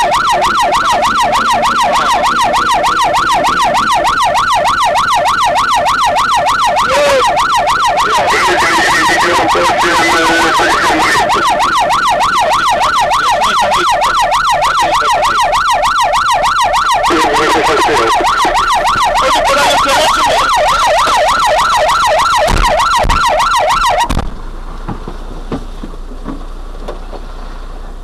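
Fire engine's siren in a fast yelp, rising and falling about three times a second, which cuts off about 24 seconds in; after that only the engine is heard running quietly.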